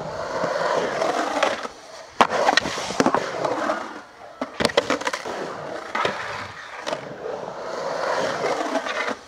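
Skateboard wheels rolling and carving on a concrete bowl, the rumble swelling and fading, with the metal trucks grinding and clacking on the coping: sharp clacks about two seconds in and again around five seconds.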